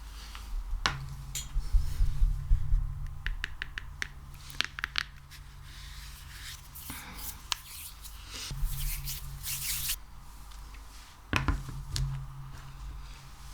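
Hands working sticky ASMR material, slime or wax: an uneven run of sticky clicks, crackles and rubbing, with longer stretches of hiss about halfway through and near the end.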